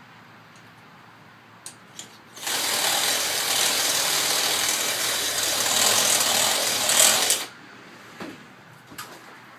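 A power tool runs for about five seconds, starting a couple of seconds in and stopping abruptly, as it works metal to enlarge the stud hole in a wheel hub for a press-in replacement wheel stud. A few light clicks of handling come before it.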